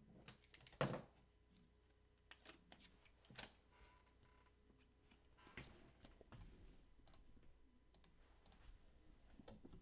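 Faint, scattered clicks and taps of a computer mouse and keyboard being worked, the loudest about a second in, against near silence.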